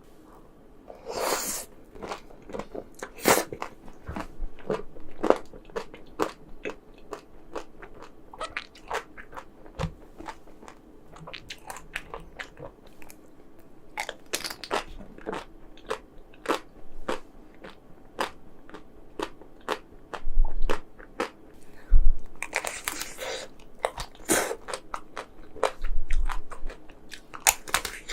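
Close-miked eating of chocolate ice cream: sharp crunches of the hard chocolate coating at an irregular pace, with chewing in between and a couple of longer, louder crunches.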